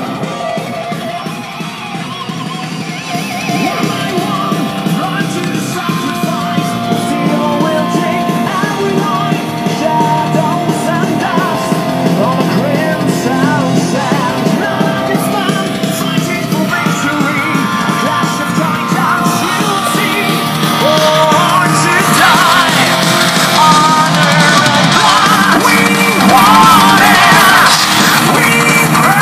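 A song with singing and guitar played loudly through a Technics SB-C80 speaker, picked up close to the cabinet. It gets louder about two-thirds of the way in, reaching around 100 dBA at the speaker.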